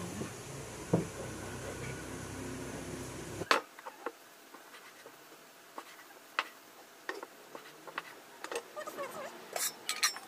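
Meat cleaver chopping pork liver and heart on a wooden chopping board: irregular sharp knocks of the blade striking the board, coming more often near the end. A steady background hum stops about three and a half seconds in.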